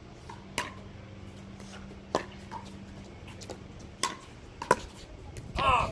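Pickleball rally: paddles striking a plastic pickleball, sharp single pops every one to two seconds, the loudest near the end. A player's short vocal call follows just before the end.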